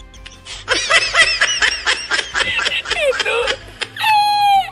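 The 'El Risitas' laughing-meme clip: a man laughing in rapid high-pitched bursts for about three seconds, then breaking into one long, slightly falling squeal near the end.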